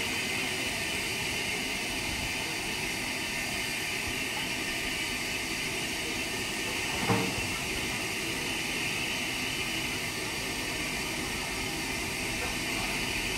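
Steady hiss of escaping steam from Southern Railway Schools class 4-4-0 steam locomotive No. 926. A single short knock sounds about seven seconds in.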